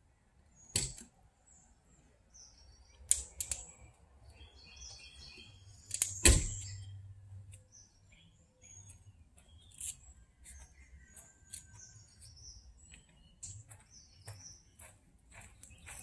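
Birds chirping, with scattered sharp clicks and knocks; the loudest knock comes about six seconds in.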